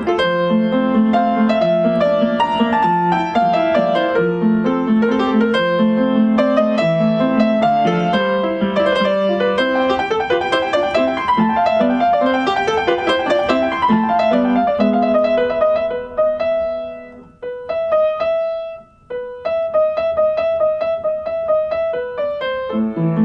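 Solo piano playing a gentle instrumental Christmas piece, with flowing runs of notes that thin out about three-quarters through, dropping almost to a pause twice before a few repeated higher notes take over.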